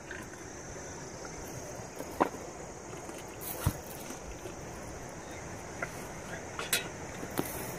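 Hot liquid poured from a small pan into two tin cups, with a few light clinks of metal on metal, over a steady hiss.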